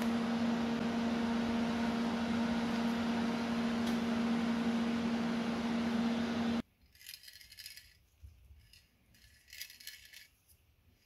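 TIG welding setup humming steadily with a hiss, cutting off abruptly about six and a half seconds in. A few faint, short metallic scrapes and clicks follow as a hand tap is turned in a part held in a vise.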